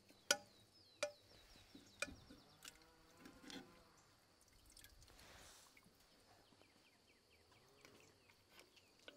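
Metal tongs clinking against a cast-iron kazan a few times in the first half as braised pig's feet are lifted out, with faint dripping of cooking liquid.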